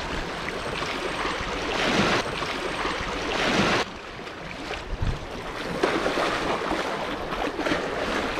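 Sea waves washing against a rocky shore, swelling twice and then falling back.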